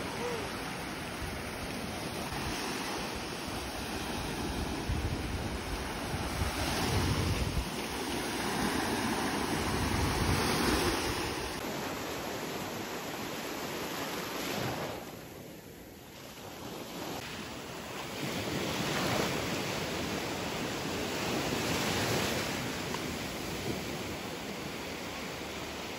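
Small sea waves breaking and washing up over a sandy shore, the surf swelling and easing every few seconds, with wind rumbling on the microphone.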